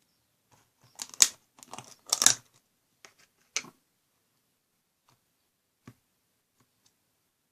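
Short bursts of crinkling, tearing-like handling noise, the loudest about one and two seconds in and another shortly after three seconds, followed by a few faint clicks.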